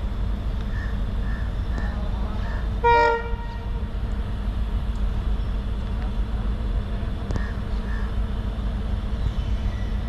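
One short blast of a WDP4D diesel locomotive's horn about three seconds in, over a steady low rumble.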